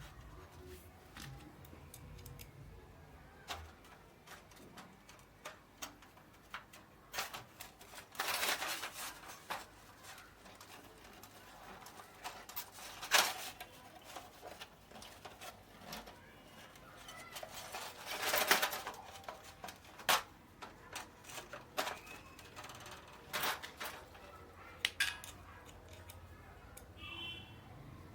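Irregular small clicks and taps, with two longer scraping noises of about a second each, as small parts are handled during the hand assembly of a flood light.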